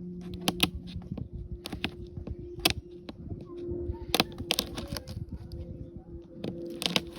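A flathead screwdriver prying and snapping off pieces of cracked dashboard pad, giving a dozen or so irregular sharp cracks and snaps, several in quick pairs. The pieces are being broken off to get the cracked, lifted dash flat before filling.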